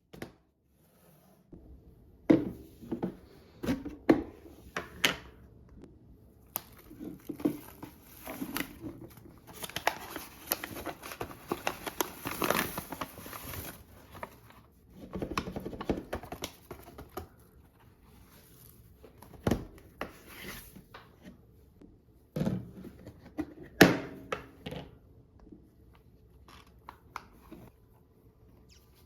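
Packaging crinkling and tearing, with a scatter of sharp clicks and knocks as things are handled and set down. A longer stretch of rustling comes about a third of the way in.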